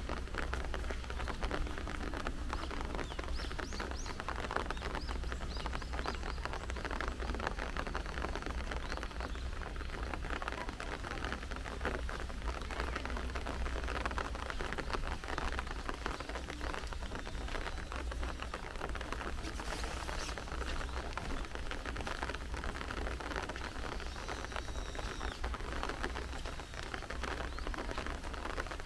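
Steady rain falling, with many close drops pattering. A bird chirps a few times a few seconds in and again about 24 seconds in.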